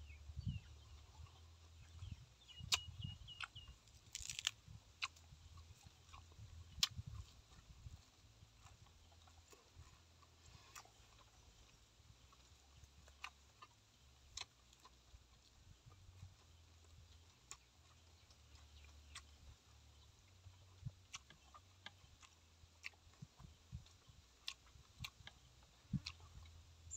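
Faint close-up chewing of boiled eggs and fresh leaves, with scattered wet mouth clicks and lip smacks.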